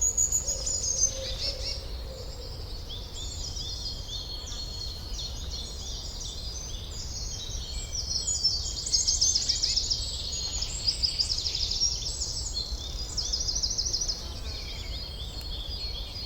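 Forest ambience of several songbirds singing, with many short chirps and rapid trills that grow busiest midway through, over a steady low rumble.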